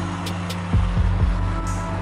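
Background music with a deep, steady bass line and sharp percussion hits, with a few falling bass slides near the middle.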